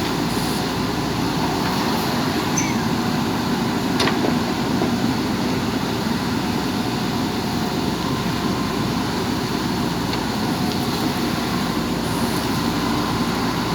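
JCB 3DX backhoe loader's diesel engine running steadily under working load, with one sharp click about four seconds in.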